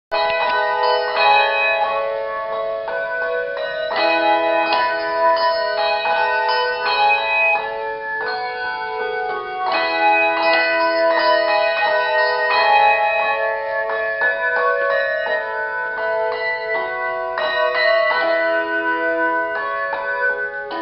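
Handbells playing a tune: struck notes ring on and overlap in chords, with fresh strikes coming every fraction of a second to a second.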